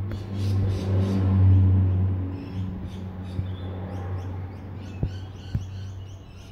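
A low steady hum that cuts off after about two seconds, with birds chirping. A few sharp knocks near the end, from a dog moving about inside a plastic kennel.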